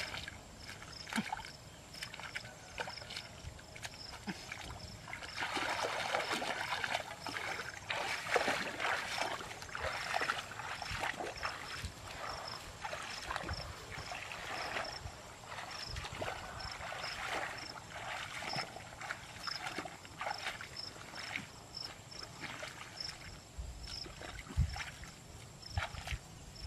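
Splashing and sloshing of legs wading through a shallow, muddy ditch of water, irregular and loudest from about five to eleven seconds in. A high insect chirp repeats evenly, about twice a second, behind it.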